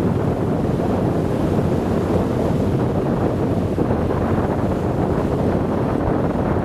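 Steady wind rushing over the microphone aboard a ferry at sea, mixed with the wash of the water.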